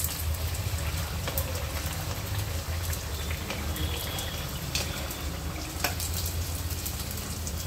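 Spring rolls deep-frying in hot oil, a steady sizzling and bubbling, with a few light clicks of a steel slotted skimmer against the pan as the rolls are lifted out.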